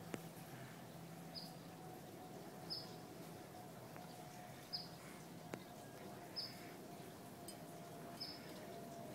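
A small bird's short, high chirp repeated five times, about every one and a half to two seconds, faint, over a faint steady hum.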